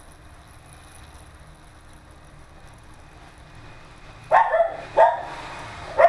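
A dog barks twice, two short loud barks about four and five seconds in, over a faint steady background.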